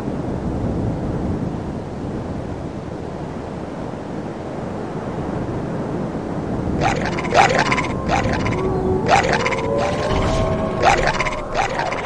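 Steady wind rumbling. From about seven seconds in, a run of sharp clatters and a few short pitched sounds, some sliding in pitch, comes in over it.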